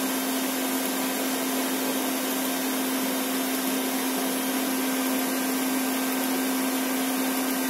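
Steady machine noise from the CNC setup: a constant hum with an even hiss, unchanging throughout, like a vacuum or dust extractor running.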